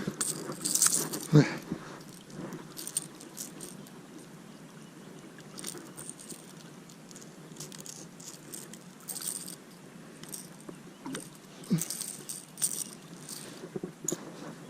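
Fishing tackle rattling and clicking in short, scattered bursts while a hooked bass is reeled in and landed, with a sharp knock about a second and a half in and another near the end.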